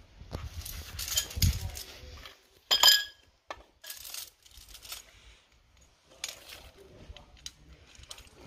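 Metal hardware and an aluminium rod clicking and clinking against a plastic outboard motor mount and stone paving as the mount is assembled by hand. The loudest is a short ringing metallic clink about three seconds in.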